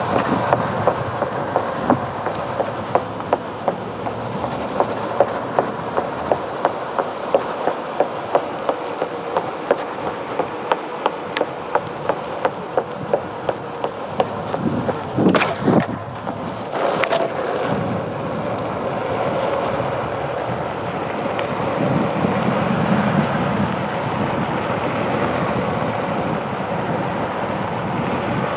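Onewheel Pint electric board's single tire rolling over pavement, clicking about twice a second as it crosses the joints, with wind on the microphone. About halfway through come two sudden louder noises as the rider nearly falls, and the rolling then settles into a steady rumble without clicks.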